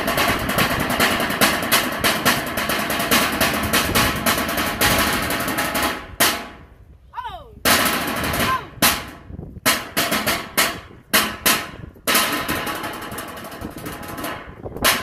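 Sticks drumming on a tin can drum in Samoan fire knife dance drumming: a fast, continuous rumble of strokes for about six seconds, then a break of separate, spaced strikes, then the fast rumble again for the last few seconds.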